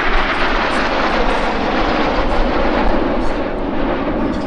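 Jet noise from a formation of Red Arrows BAE Hawk T1 jets passing over, a loud, steady roar whose pitch falls as they go by.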